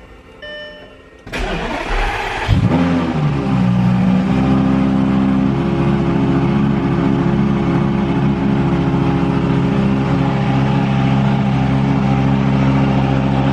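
Lamborghini Gallardo V10 starting: an electronic chime beeps in short pulses, the starter cranks for about a second, and the engine catches with a brief rev before settling into a steady idle.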